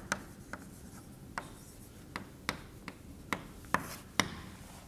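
Chalk on a blackboard as a diagram is drawn: a string of short, sharp taps and scratches at irregular intervals, roughly one every half second.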